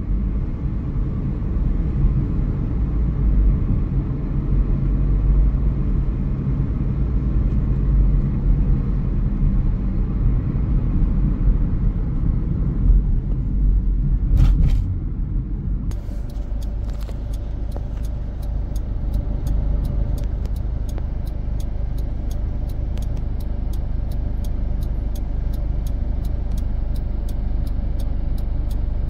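Steady low rumble of road and engine noise inside a moving car. About halfway through, the sound changes: a faint steady hum comes in, along with a light, even ticking about three times a second.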